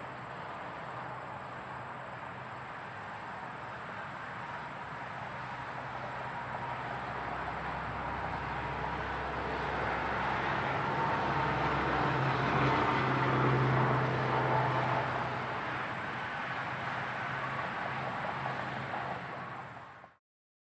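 Close interstate highway traffic: a steady rush of tyres and engines that swells about halfway through as a vehicle passes close, its low engine hum at its loudest, then eases and cuts off abruptly near the end.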